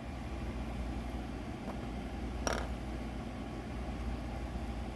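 Steady low mechanical hum, like a room fan or air conditioner, with one brief short sound about halfway through.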